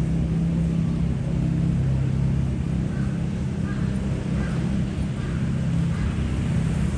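A vehicle engine running with a steady low hum, amid city street ambience.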